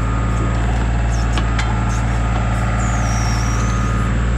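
John Deere diesel engine running steadily, with a few light clicks over it.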